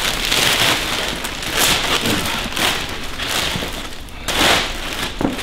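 Clear plastic wrapping crinkling and rustling as it is pulled off a leather home theater chair, a continuous run of crackling rustles.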